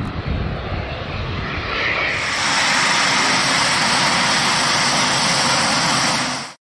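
Jet noise from a Eurofighter Typhoon's twin EJ200 turbofans, a steady rush that grows louder and brighter about two seconds in and cuts off suddenly near the end.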